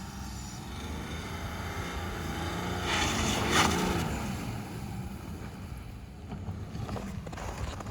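BMW F10 530d's 3.0-litre straight-six diesel revving under wheelspin in snow, its note climbing to a peak about three and a half seconds in and then falling back, with a wash of noise at the peak.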